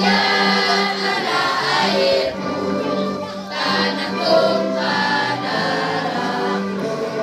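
Children's choir singing together over a musical accompaniment that repeats a steady low note.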